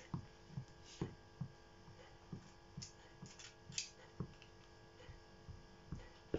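Spoon spreading fresh goat cheese over puff pastry: soft, irregular taps and scrapes against the dough on the table, about two a second, with a few sharper clicks. A steady electrical hum lies under it.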